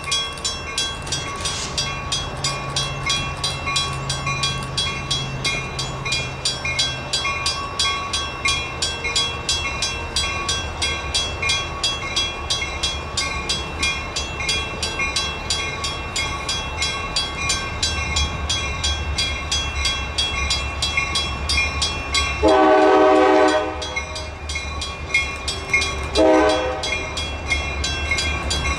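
Grade-crossing warning bell ringing steadily in rapid even strokes as CSX GP40-2 diesel locomotives approach, their low engine rumble building. Near the end the lead locomotive's air horn sounds a long blast and then a short one, the loudest sounds here.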